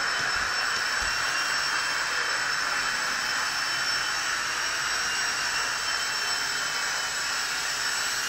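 Blade BO-105 CX micro coaxial RC helicopter in flight, its small electric motors giving a steady high whine over the rushing of the spinning rotor blades.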